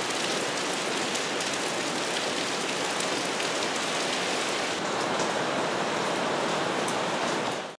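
Heavy rain falling steadily, a dense even hiss with scattered drops ticking.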